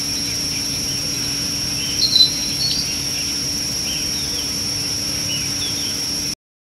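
Wild bush ambience: a steady high insect drone with short bird chirps and calls scattered through it, the loudest about two seconds in, over a faint low hum. Everything cuts off suddenly near the end.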